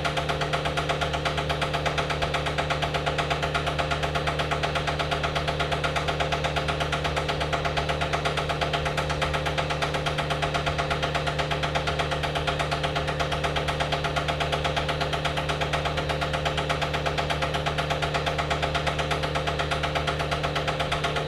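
Vacuum pump of a neon-tube processing manifold running steadily: a rapid, even mechanical pulsing over a low hum.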